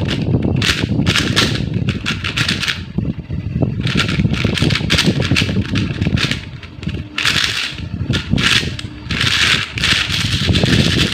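Loosely tensioned plastic 4x4 speedcube being turned fast: a rapid run of clacking clicks as the layers snap around, coming in bursts with a couple of short pauses.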